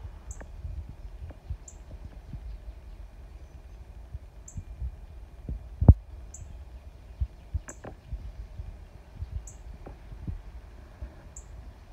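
Low rumble and soft irregular thumps of a handheld phone's microphone outdoors, with one louder thump about six seconds in. A short, high chirp repeats every second or two.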